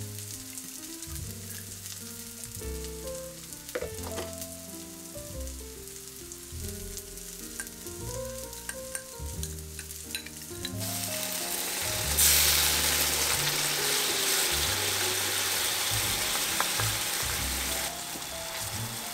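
Chicken and lotus-root tsukune frying in a pan, sizzling lightly with scattered crackles. About eleven seconds in, the sizzle swells much louder, holds for about six seconds, then drops back. Background music plays throughout.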